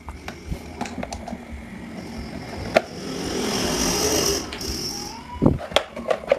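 Small metal clicks and knocks from a screwdriver and an electric fan motor's metal housing as its screws are taken out and the end cap is worked loose, with a cluster of louder knocks near the end. A hissing rush of noise swells and fades for about two seconds in the middle.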